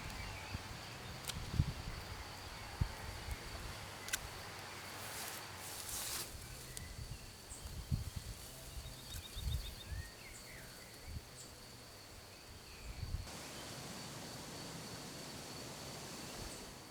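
A steady high-pitched insect trill, like a cricket's, runs throughout, with rustling and a few light knocks and clicks. The background changes abruptly about thirteen seconds in.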